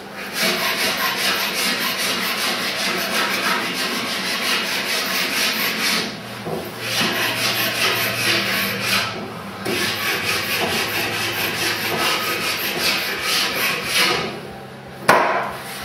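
Hand plane shaving the edge of a wooden paddle blank: a fast run of rasping strokes that breaks off briefly about six and nine seconds in. Near the end the strokes stop and a single sharp knock sounds.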